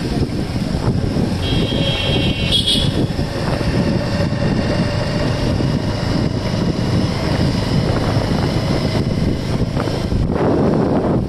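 Motorcycle running on the move, its engine noise mixed with wind buffeting the microphone. About two seconds in, a short high-pitched tone sounds over it.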